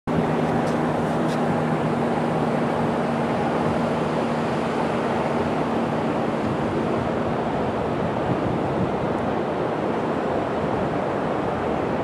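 Ocean surf breaking and washing up the beach, a steady rushing. A steady low hum runs under it and stops about seven and a half seconds in.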